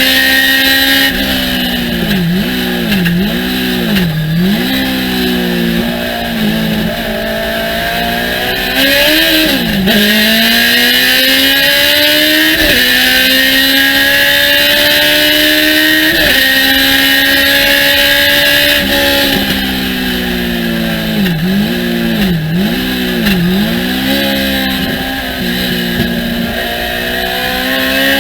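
Thunder Roadster race car engine at racing speed, climbing steadily in pitch through the gears with a sudden drop at each of several upshifts. Twice it runs through a quick series of throttle-blipped downshifts, with the revs dipping and rising three or four times in a row.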